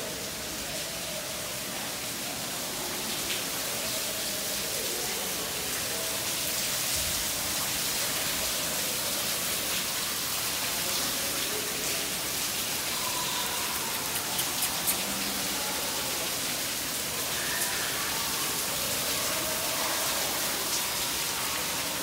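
A steady rushing hiss, like rain or falling water, with a faint murmur of voices underneath. A few soft clicks come about fifteen seconds in.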